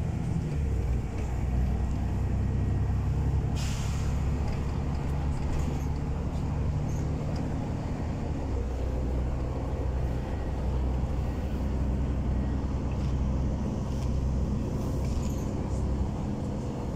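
Inside a moving LiAZ 6213.22 city bus: a steady low engine and drivetrain drone with road noise. A short hiss of compressed air comes about three and a half seconds in, and a fainter one near the end.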